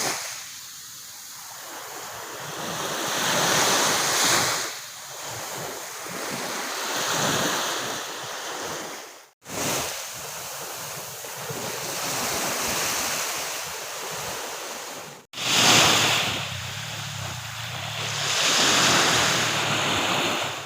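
Sea waves breaking and washing up on a beach, the surf swelling and ebbing every few seconds. The sound cuts out for an instant twice, about nine and fifteen seconds in.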